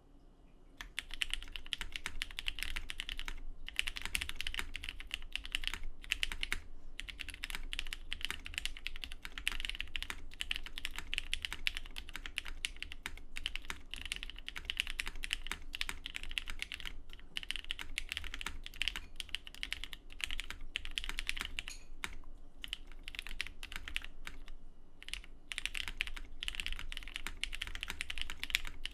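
Typing on a custom KFE CE mechanical keyboard with Cherry MX Black Clear-top 'New Nixies' linear switches on a POM half plate, under GMK keycaps: a fast, continuous stream of keystrokes. It starts about a second in and breaks off briefly a few times.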